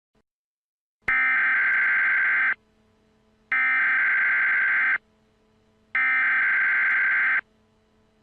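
Emergency Alert System SAME header: three harsh, buzzing bursts of digital data tones, each about a second and a half long and about a second apart, the coded header that opens an EAS alert ahead of the attention tone.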